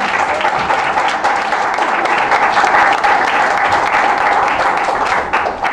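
Audience applauding, many hands clapping steadily, stopping abruptly near the end.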